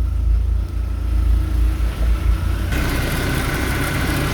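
BMW E36 engine idling, its power steering pump running on overfilled, aerated 68-grade hydraulic oil. About two-thirds of the way in the sound gets louder and a steady whine comes in, as the pump is heard up close.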